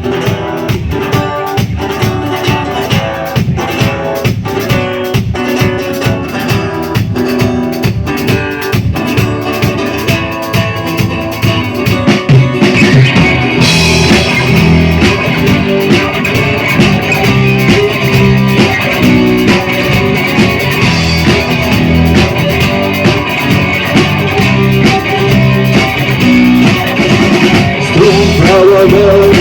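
Rock band playing the instrumental intro of a song live, with electric guitar and drum kit over a steady beat. About twelve seconds in the full band comes in and the music grows louder and fuller.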